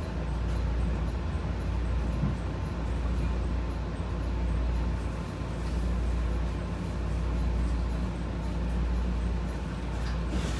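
Running noise of a JR Shikoku 7200-series electric train heard from inside the carriage: a steady low rumble of wheels on rail with a faint hum.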